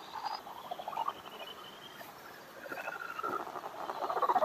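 Faint chirping and squeaking animal calls, fast runs of ticks with short pitched notes, growing louder toward the end.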